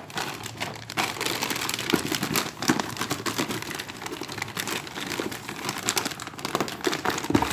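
White packaging wrap crinkling and rustling as it is handled and pulled back from a boxed toy, with many small irregular crackles.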